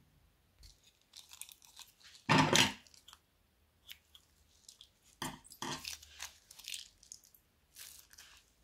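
Thin plastic bag of clear slime crinkling and crackling as it is handled, snipped open with scissors and squeezed out. The loudest crackle comes a little after two seconds in, with another cluster of crinkles in the second half.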